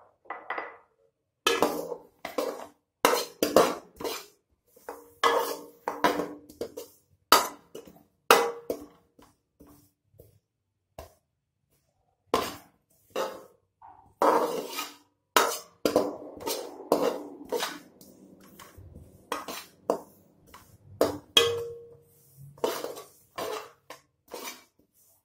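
Metal spoon scraping and clinking against a stainless steel wok while stirring sesame seeds as they dry-roast, in irregular strokes with a short pause about halfway through.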